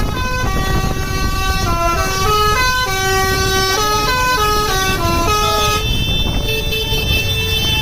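Bus 'telolet' Basuri musical air horn playing a tune of stepped notes, each held briefly, then settling on one long held note about six seconds in.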